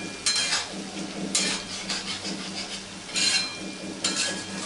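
A metal spatula stirring and scraping a thick potato and broccoli curry in a metal kadai, in several uneven strokes, over the steady sizzle of the simmering curry.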